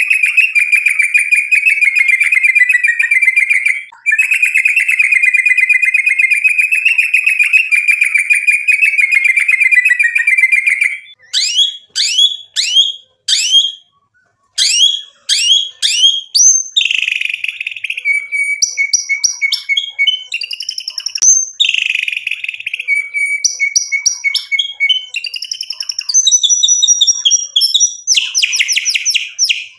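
White-rumped shama (murai batu) singing: a long, rapid, unbroken trill for roughly the first ten seconds, briefly interrupted once, then a string of sharp falling whistles and varied phrases with held notes.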